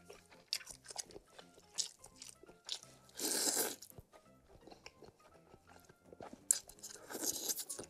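Close-miked eating of spicy noodle soup: wet chewing and mouth clicks, with two loud slurps of noodles, one about three seconds in and one near the end. Faint background music underneath.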